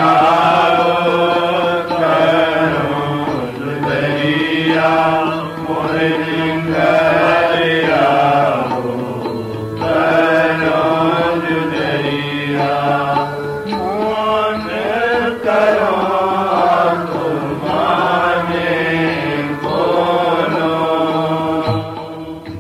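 A Sikh devotional hymn (shabad) sung in long, gliding held notes over a steady harmonium drone. It drops away just before the end.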